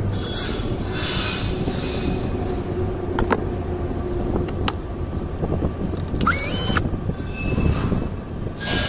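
Cordless drill/driver giving a brief rising whine about six seconds in, among rustling, scraping and a few sharp clicks of hands and parts being handled.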